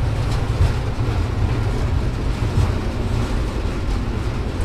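Running noise inside the cab of an Indian Railways WAP-4 electric locomotive travelling at speed: a steady low rumble with a wide, even noise of wheels on rail.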